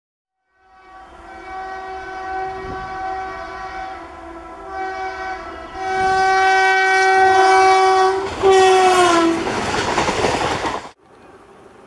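WAP-7 electric locomotive's horn sounding in several long blasts as the express approaches, louder as it nears, its pitch dropping as the locomotive passes. The loud rushing of the coaches going by at speed follows and cuts off abruptly near the end.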